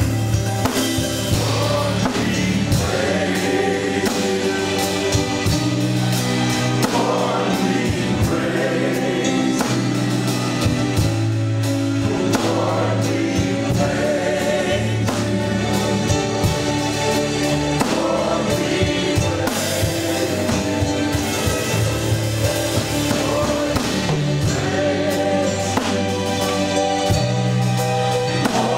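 Gospel music: a choir singing over a steady bass line and drums.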